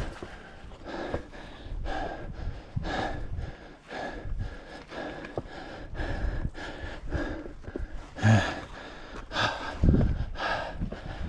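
A hiker breathing hard and fast while climbing a steep trail, about one heavy breath a second, with two louder breaths a little past the middle and near the end.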